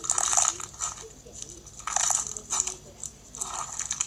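Fishbowl slime being squeezed and pressed, its plastic fishbowl beads crackling and crunching in about four short bursts.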